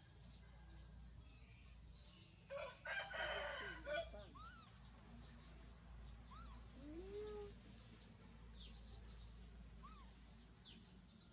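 A rooster crowing once, about two and a half seconds in, with faint high-pitched chirping of small birds around it.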